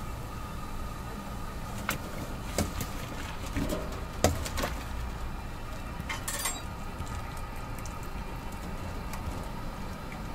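Steel mesh noodle basket knocking and clinking against a stainless-steel noodle-boiling tank, a few sharp metal knocks with the loudest about four seconds in, over a steady kitchen hum.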